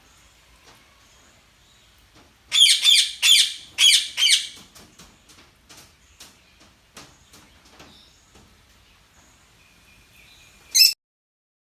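Birds chirping and calling: a loud flurry of quick, high chirps about two seconds in, then softer scattered chirps and thin whistles, and one last loud call just before the sound cuts off near the end.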